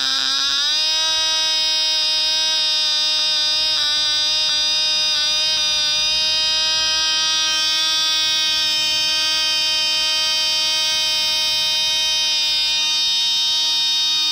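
Cox Tee Dee .020, a tiny two-stroke glow engine in a model biplane, running at high speed on the ground as a steady high-pitched buzz. Its pitch sags and recovers in the first second, wavers briefly a few seconds in, then holds steady.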